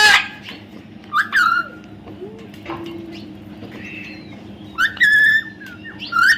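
Baby parrot calling: short calls that drop in pitch at the start and about a second in, then a longer call about five seconds in and another near the end.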